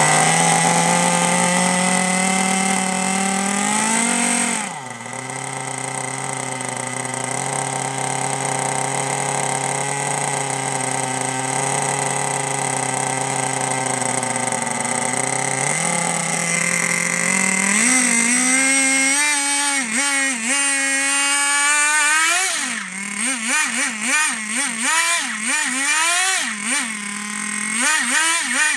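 Small nitro glow engine of a Thunder Tiger SSK RC monster truck running on the bench. It holds a high fast idle, drops to a lower idle about five seconds in, then is revved in a string of short throttle blips through the last ten seconds.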